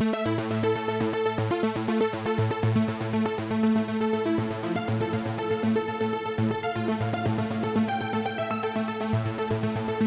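Cherry Audio DCO-106 software synthesizer, an emulation of the Roland Juno-106, playing its 'Random Assault' preset: a fast run of short, pitched synth notes over a steady low drone, in an electronic, trance-like style.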